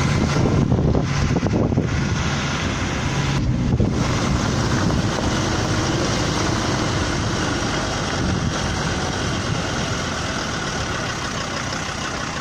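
Off-road 4x4 engines running at low speed on a dirt track, with a steady low engine hum through the first few seconds and road noise throughout.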